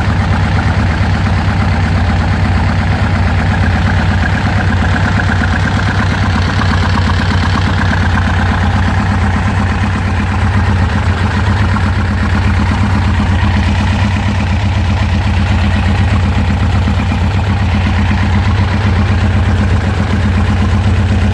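1999 Kawasaki Concours's inline-four engine idling steadily.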